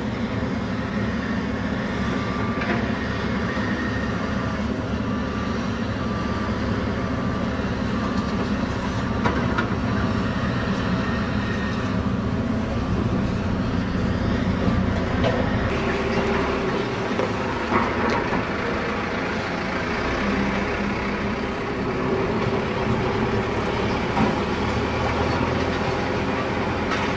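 Diesel engines of excavators and other heavy demolition machinery running steadily, with occasional knocks.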